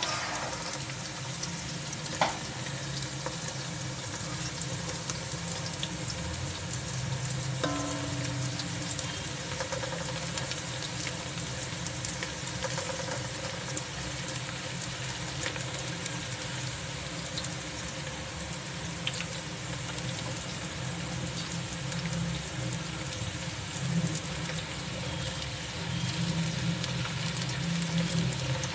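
Sliced onions sizzling steadily in hot oil in a large metal pot on high heat, stirred with a wooden spoon. There is a single sharp click about two seconds in.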